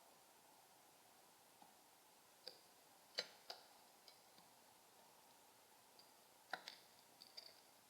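Near silence with a few faint, irregular clicks and taps: two close together about three seconds in, and a small cluster about six and a half to seven and a half seconds in.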